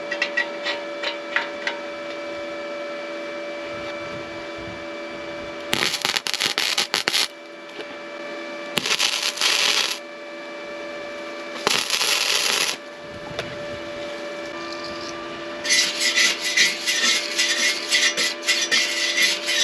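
Electric arc welding on a steel bracket: four bursts of crackling sizzle, each a second or so long, with the last and longest lasting about four seconds near the end, over a steady two-note hum.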